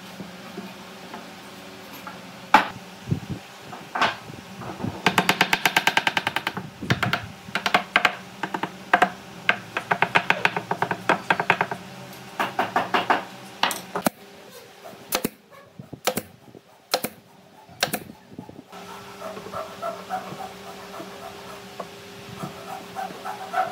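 Hammer taps on a pine board frame, coming in quick clusters of many knocks, with a few single sharp knocks later on.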